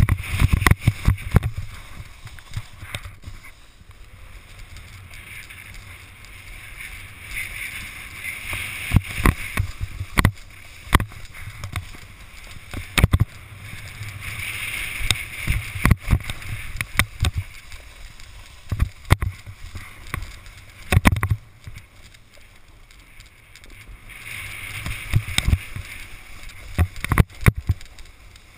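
A snowboard sliding and carving down softened spring snow, its edge scraping the surface in waves that swell and fade every few seconds, over a low wind rumble on the microphone. Frequent sharp knocks and clatter punctuate the scraping.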